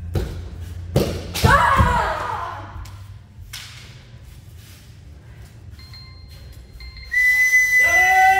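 Kendo bout: sharp knocks of a shinai strike and a foot stamp about a second in, with a fighter's high kiai shout over them. Near the end a long, steady, high whistle-like tone sounds, with a shout over it, as the referee raises both flags to halt the bout.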